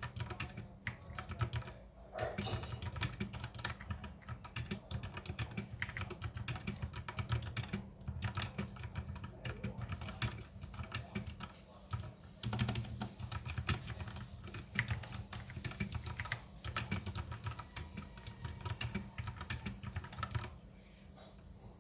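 Typing on a K630 60% mechanical keyboard with Outemu brown switches: a steady, uneven run of key clacks with short pauses, dying away about a second before the end.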